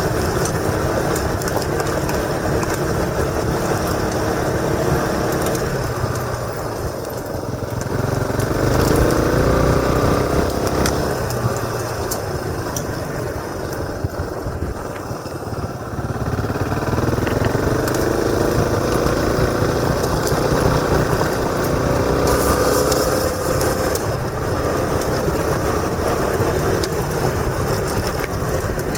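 Motorcycle engine under way, its pitch climbing as it accelerates and dropping back as the throttle eases, several times, with wind rushing over a helmet-mounted microphone.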